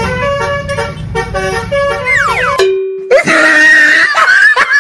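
Multi-tone 'telolet' bus horn playing a stepping melody over a low engine rumble. About two seconds in, a falling glide ends it. After a brief gap, a different dense sound starts, with a wavering high tone and sharp clicks.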